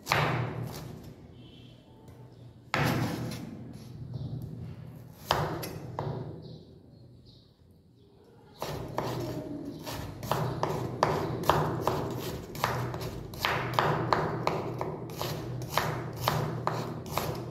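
Chef's knife chopping cabbage on a wooden cutting board. There are a few separate knocks at first, then from about halfway a quick, even run of chops, about three a second.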